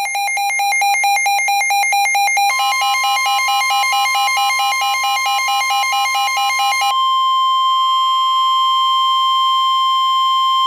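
NOAA Weather Radio warning alert: rapidly pulsing electronic alarm tones that change pitch about two and a half seconds in. From about seven seconds in a single steady tone near 1 kHz is left, the 1050 Hz warning alarm tone that signals a warning such as a tornado warning.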